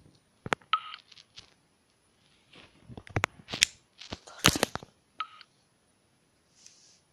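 Handling noise as a plastic smart wristband is turned over in the hand: irregular clicks, taps and brief rustles, busiest in the middle, with two short high chirps, one about a second in and one about five seconds in.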